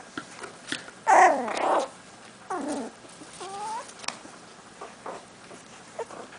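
Yorkshire terrier puppies whining and yelping in a few short high cries that bend in pitch, the loudest about a second in, then two more, the last rising, with a few small clicks in between.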